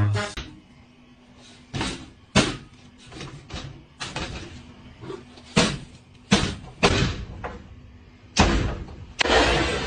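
A metal wall cabinet's door banging repeatedly: about seven short, loud bangs at uneven gaps.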